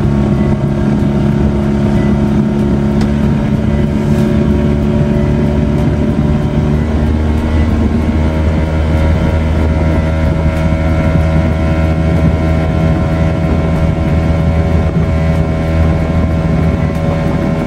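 Small tiller-steered outboard motor running steadily as it drives a small boat across open water. Its note shifts about halfway through.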